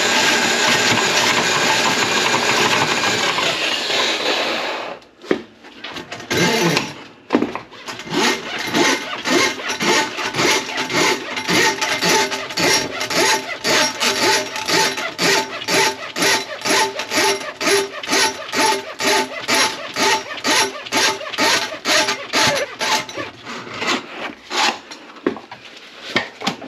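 Powered drum drain snake running in a plugged kitchen sink drain line: a steady run for about five seconds that stops, then a rhythmic pulsing about two and a half times a second as the spinning cable works into the grease clog, fading out near the end.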